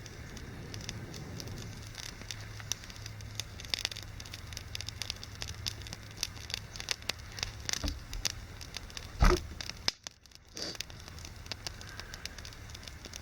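Small campfire of damp wood crackling, with many sharp pops. There is one loud thump about nine seconds in, and the sound drops out briefly just after.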